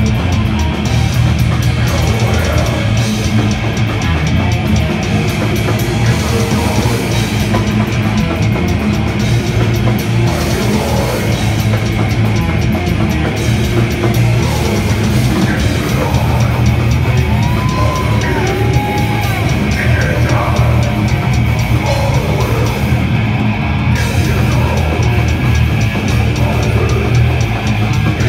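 Death metal band playing live: loud, heavily distorted electric guitars and bass over fast, dense drumming.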